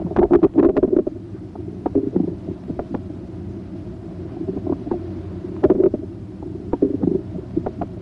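Bowel sounds heard through a stethoscope's diaphragm on the abdomen: irregular clicks and gurgles over a steady low hum, coming in clusters near the start, around two seconds in, and again in the last couple of seconds.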